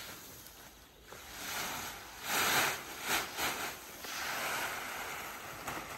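Dry grain feed being poured out and shifted onto a pile, a rushing hiss that comes in several surges, loudest about two and a half seconds in.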